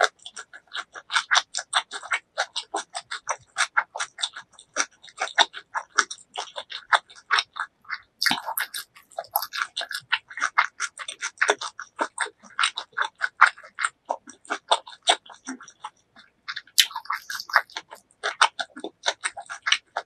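Close-miked mouth sounds of chewing a fresh rice-paper shrimp spring roll: a dense, irregular run of small clicks and smacks, several a second.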